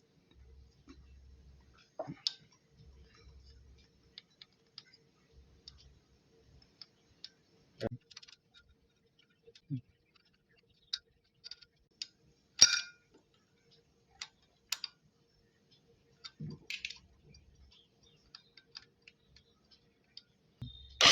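Scattered metallic clicks and clinks of hand tools working on a motorcycle engine's rocker and tappet gear, with long quiet gaps and one sharper clink about two-thirds of the way through. Right at the end the engine starts up.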